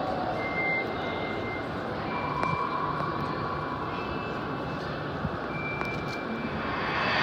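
Steady rushing ambient drone of an immersive digital-art installation room, with a few faint high tones each held for about a second.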